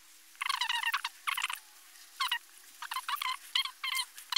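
A small animal's high-pitched, wavering chirping calls in several short bouts, about six in quick succession. A faint steady hum runs underneath.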